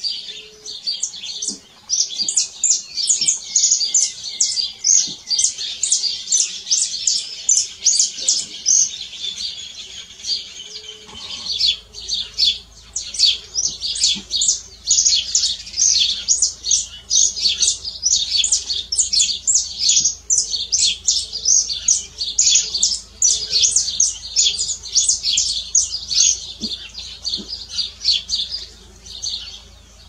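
Saffron finch singing: a long, near-continuous run of rapid, high chirping notes.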